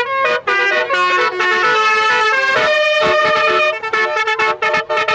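Telolet multi-tone vehicle horn playing a quick tune of stepped notes, which breaks into a rapid run of short staccato blasts near the end.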